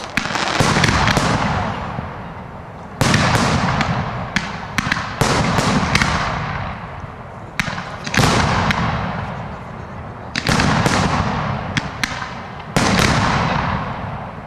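Fireworks display: aerial shells bursting in loud booms about every two to three seconds, each fading away over a second or two, with sharp cracks in between.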